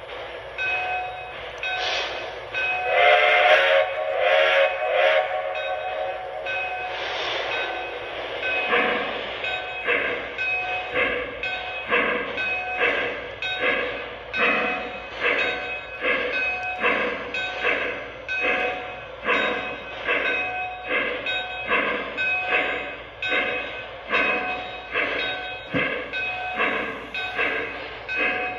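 Lionel O-gauge Western Maryland Shay steam locomotive's onboard sound system: a whistle blows for about two seconds a few seconds in, then steam chuffs run in an even rhythm of about two a second as it moves along the track.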